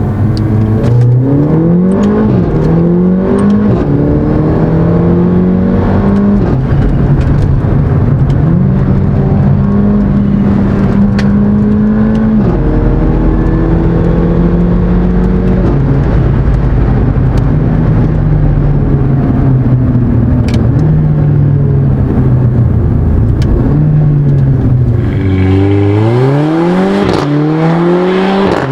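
Mercedes-AMG CLA 45's turbocharged 2.0-litre four-cylinder engine pulling through the gears: its pitch climbs and drops with each upshift, holds steady for stretches while cruising, then climbs hard twice near the end under acceleration.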